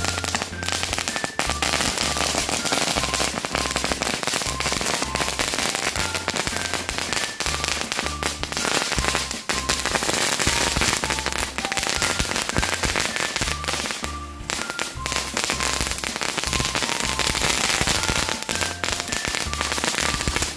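Dense, continuous crackling and popping from a large pile of spinning ground firecrackers and small chili firecrackers burning together, easing briefly about two-thirds of the way through. Background music with a steady bass line runs underneath.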